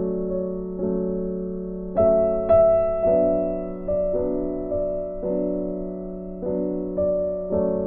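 Slow, gentle piano background music: chords struck about once a second, each fading away, over a held low note.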